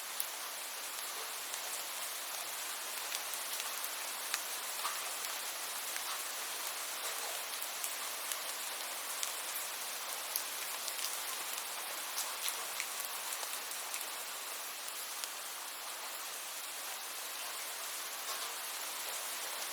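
Steady rainfall: an even hiss of rain with scattered sharp taps of single drops landing close by.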